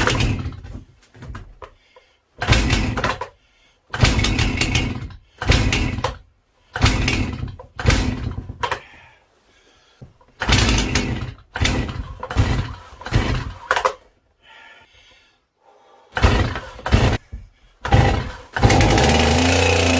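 Two-stroke chainsaw being pull-started: the starter cord is yanked over and over, each pull a short burst of noise. Near the end the engine catches and keeps running steadily.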